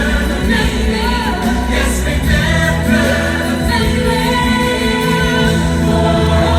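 Holiday fireworks-show soundtrack: music with voices singing a melody over sustained low notes.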